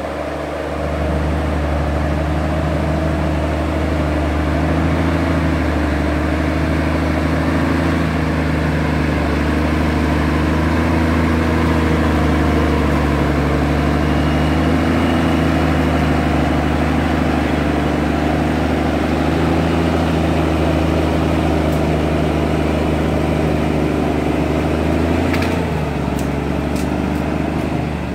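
Diesel engine of a Timberjack forestry forwarder loaded with logs running steadily as the machine drives slowly past, its pitch wavering slightly. Near the end the engine note dips briefly and a few sharp clicks sound.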